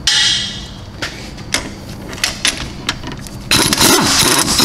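Loud air impact wrench, an Ingersoll Rand 231C half-inch, taking out a 21 mm brake caliper bracket bolt. A short burst right at the start is followed by metal clicks, then the wrench hammers for about two seconds near the end.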